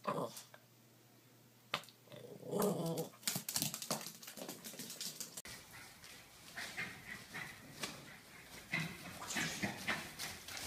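A small terrier-type dog vocalizing in short, irregular bursts, loudest a couple of seconds in.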